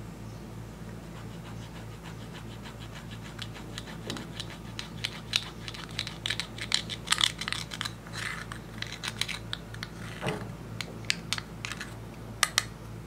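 A thin metal tool scraping and picking pressed eyeshadow out of its plastic pan, a run of quick scratchy clicks that starts a few seconds in and is busiest in the middle, over a low steady hum.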